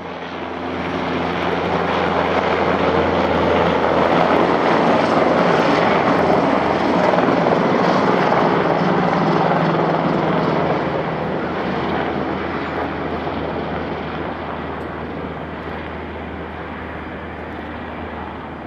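Jet airliner engines running: a steady jet roar over a low hum. It swells in the first couple of seconds and eases gradually over the second half.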